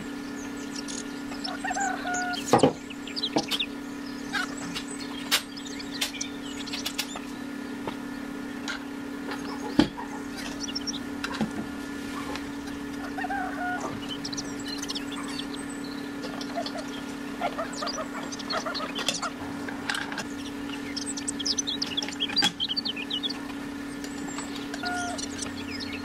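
Clicks and light knocks of small parts being handled and set down on a table, over a steady low hum, with scattered short chirping sounds throughout.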